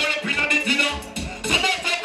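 Dancehall music played loud through a live stage sound system, with a heavy, regular bass beat.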